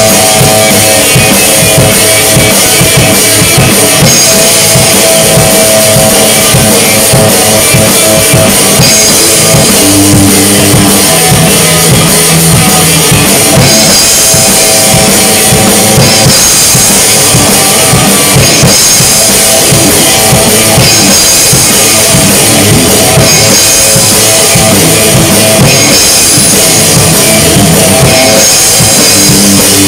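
Rock band playing loudly, a drum kit keeping a steady driving beat with bass drum under electric guitar.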